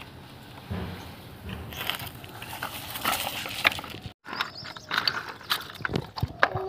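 Plastic toy tractor and trailer handled and moved over gravel, scraping and rattling with many sharp clicks. After a break about four seconds in, a plastic toy excavator arm clicks against loose stones.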